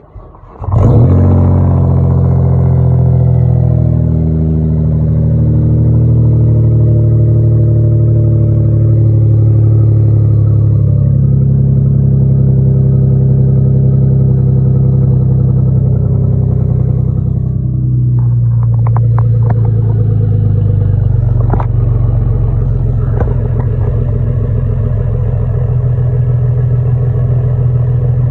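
Jaguar S-Type engine starting up and then idling through its turned-down exhaust pipes, with an exhaust leak. The engine catches under a second in and runs steadily, with a few sharp ticks in the later part.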